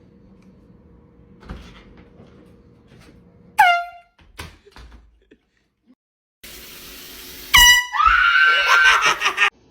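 Two air horn blasts. A short one comes about three and a half seconds in. A longer, louder one starts about seven and a half seconds in and cuts off abruptly near the end.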